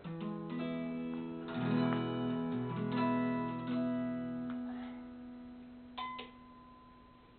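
Acoustic Gibson guitar strummed: a few chords ring out over the first four seconds or so and then fade away, and a single note sounds sharply about six seconds in and rings for about a second.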